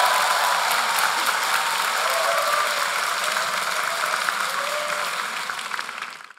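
A large audience applauding steadily with dense clapping; the sound cuts off abruptly near the end.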